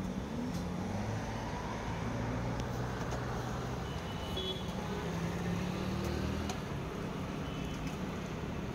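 Road traffic: motor vehicle engines running and passing, a steady hum with low engine tones that drift slightly in pitch.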